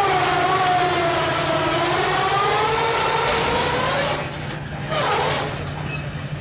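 Electric winch whining as it hauls a car up onto a trailer, its pitch sagging and then rising with the load, then cutting off about four seconds in. A steady low engine hum runs underneath.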